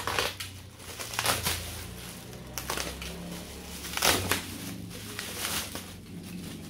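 Plastic packaging and bubble wrap crinkling and rustling as it is handled and pulled open, in irregular bursts, the loudest about four seconds in.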